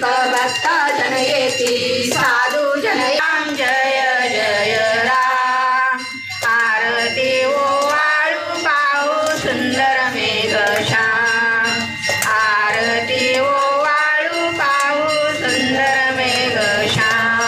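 Women singing a devotional hymn together, one voice leading through a microphone.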